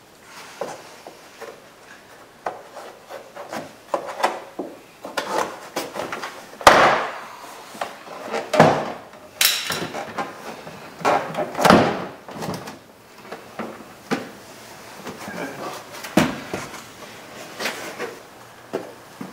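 Plastic retaining clips of a 2007 Toyota Corolla's interior door trim panel snapping loose one after another as the panel is pried away from the metal door. An irregular series of sharp pops, loudest in the middle, with the plastic panel rubbing and creaking in between.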